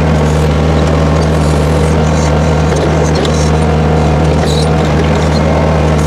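Case 1845C skid steer's diesel engine running steadily under load as it drives a backhoe attachment off its standard-flow auxiliary hydraulics, the bucket digging into dirt.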